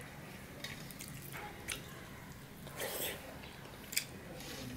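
Fingers mixing rice and mung dal in a steel plate: soft wet squishing, with a louder squelch about three seconds in and a sharp click about a second later.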